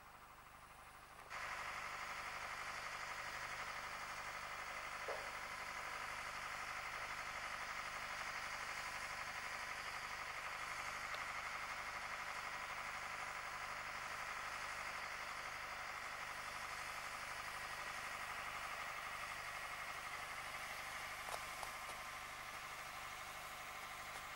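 A vehicle engine running steadily at an even pitch, coming in suddenly about a second in.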